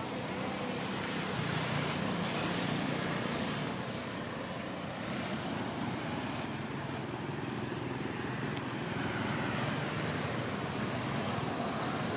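Road traffic: a steady rush of vehicles passing on the road, swelling slightly as cars go by.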